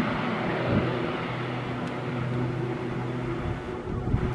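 Twin turboprop engines of a Grumman S-2T Tracker air tanker running as it rolls along the runway: a steady hum with a few constant tones over a rushing noise. Wind starts buffeting the microphone near the end.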